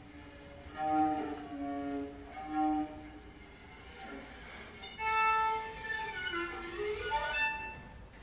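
Solo viola playing: a few short bowed notes in the first three seconds, then a quieter stretch, then a loud held high note about five seconds in that slides down in pitch and climbs back up near the end.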